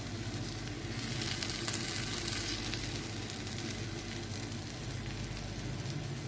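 Vegetable omelette egg sizzling in a nonstick frying pan: a steady fine crackle that swells a little about a second in, with a steady low hum underneath.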